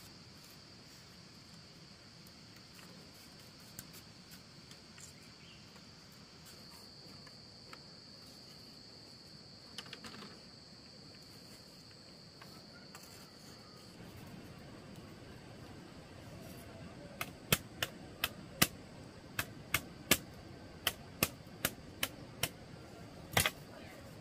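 Insects trilling in one steady high note that stops a little over halfway through. Near the end comes a run of about a dozen sharp knocks, roughly two a second, from building work on the wall.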